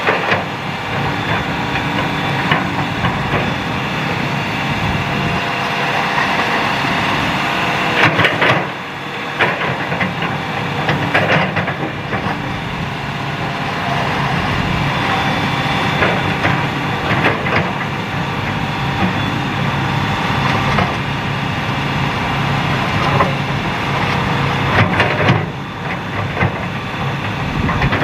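Hitachi excavator's diesel engine running steadily under load, with the bucket knocking and scraping through stone and gravel fill in sharp clatters, the loudest about 8, 11 and 25 seconds in.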